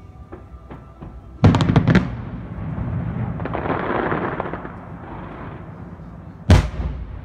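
Aerial fireworks shells bursting: a quick cluster of loud bangs about a second and a half in, a rolling noisy rush for a few seconds after, and another single loud bang near the end.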